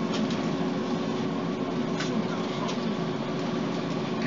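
Scania DC9 five-cylinder diesel engine of an articulated Scania OmniCity city bus running steadily at an even engine speed, a low hum with one fixed tone.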